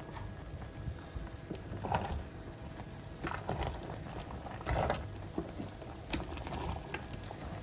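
Irregular light knocks and splashy rustles of food being handled and stirred in a cooking pot, over a low background haze.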